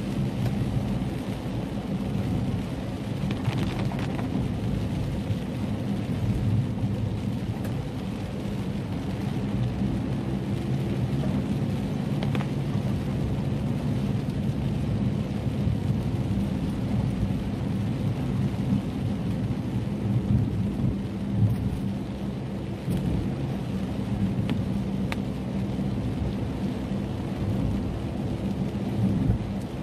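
Heavy rain falling steadily, its sound weighted toward the low end, with a few sharper drop hits now and then.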